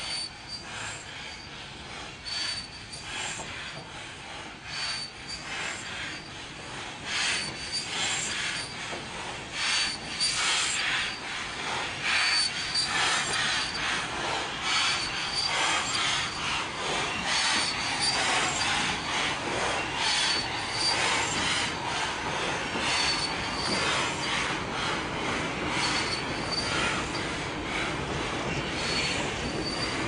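Slow-moving steam locomotives, among them Bulleid West Country class Pacific 34007 Wadebridge, squealing and rubbing as they roll. A short high squeak repeats about every one and a half to two seconds over scraping and clanking. The sound grows louder from about seven seconds in as the engines draw near.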